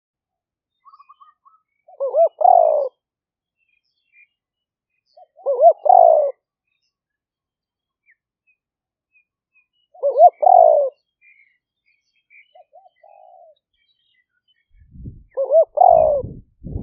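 Spotted dove cooing: four phrases spaced about four seconds apart, each a few short rising notes and then a longer falling coo. It is the decoy call used to lure wild spotted doves. Faint small bird chirps come between the phrases, and a low rumble starts near the end.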